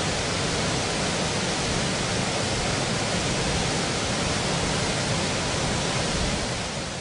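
Floodwater rushing out through a row of open dam spillway gates: a steady, even rush of white water, fading out near the end.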